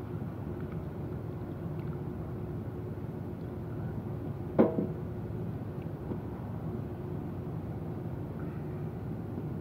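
Steady low background rumble with a faint hum, broken by one sharp knock about halfway through.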